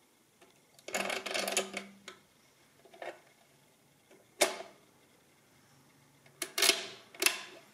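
Clicking and clattering of an EOS oscillating-segment mechanical calculator's mechanism as it is worked by hand: a rattling burst about a second in, a single sharp click a little after four seconds, and two more clattering bursts near the end.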